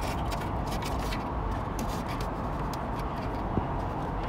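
Faint, scattered small clicks and rubbing as fingers work a thumb screw and the wheelchair's plastic cover panel into place, over a steady background rumble.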